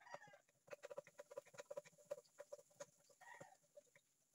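Faint, rapid clucking calls of a bird, with a longer call at the start and another about three seconds in, over light scattered clicks.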